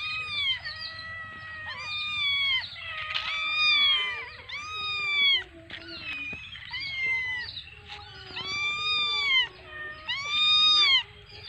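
Kittens mewing, high-pitched calls repeated about once a second.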